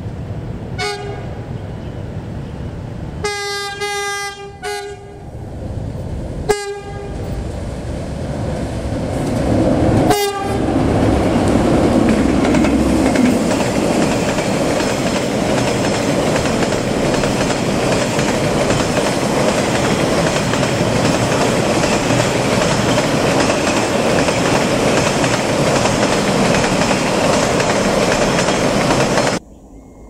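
Diesel locomotive horn sounding four times, a short toot, a long blast of about a second and a half, then two short toots, as a container freight train approaches. The wagons then pass close by with a loud, steady rumble and clatter of wheels on the rails, which cuts off suddenly near the end.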